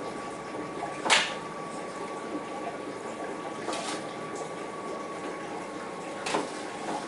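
Steady bubbling and hum of the aquarium air pumps and filters in a room of shrimp tanks, with a faint steady whine. Three short sharp sounds cut through it, about a second in (the loudest), near four seconds and just past six seconds.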